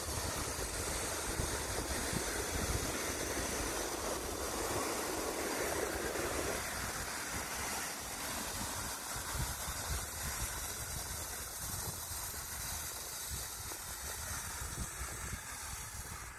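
Wind buffeting the microphone, a gusty low rumble over a steady outdoor hiss. A fuller rushing layer in the noise drops away about six and a half seconds in.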